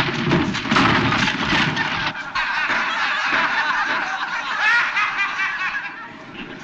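A crowd of people laughing together, breaking out suddenly and tailing off near the end.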